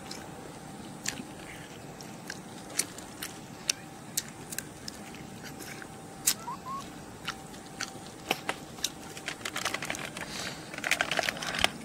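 Close eating sounds of a person chewing roasted beef hoof with crisp, charred skin: scattered sharp crunches at an uneven pace between quieter chewing.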